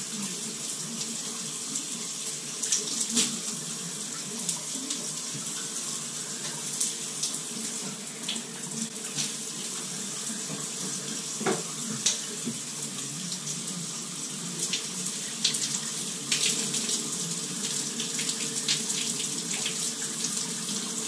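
Shower running: water from the showerhead spraying down onto the shower floor in a steady rush, with a few small clicks. The flow is weak, which the plumber guesses is due to a water-saving restrictor in the head.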